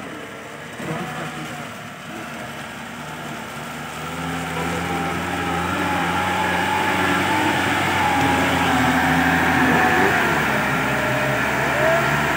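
Engine of a Tata light truck pulling slowly up a muddy slope, growing louder as it approaches and draws alongside.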